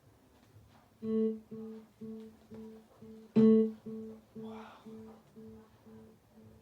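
JBL PartyBox 100 speaker sounding a plucked, guitar-like note that repeats about twice a second. It starts about a second in, is struck louder near the middle, and fades away.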